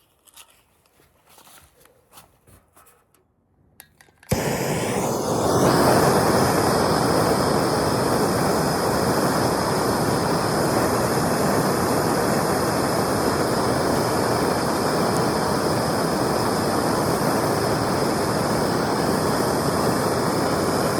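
A few faint handling clicks, then about four seconds in a handheld gas torch lights abruptly and burns with a loud, steady rushing hiss, heating a loose rivet on an aluminum boat hull for brazing with aluminum flux rod.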